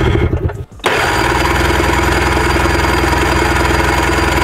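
Snowmobile engine being cranked over by its starter with the kill switch engaged, to push out the fuel in an engine its owners believe is flooded. A short crank stops about half a second in, then a longer steady crank follows with an even pulse, until near the end.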